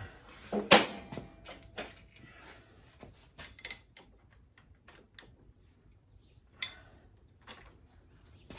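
Scattered metallic clinks and knocks of hand tools and parts being handled, the loudest about a second in.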